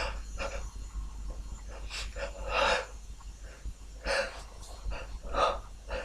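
A man's sharp, gasping in-breaths and sniffs as a sneeze builds but stays stuck, four of them, the loudest about two and a half seconds in and near the end.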